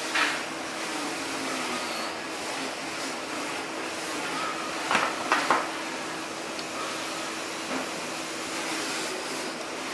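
A steady mechanical hum, with a light knock just after the start and a quick cluster of three knocks and clicks about five seconds in, from hands handling the router bit and the wooden fence of a mini router table.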